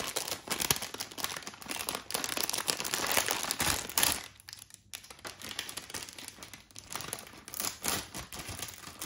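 A plastic snack packet with a metallised lining being torn open and crinkled in the hands: dense crackling for about four seconds, a brief lull, then softer rustling as the packet is pulled open.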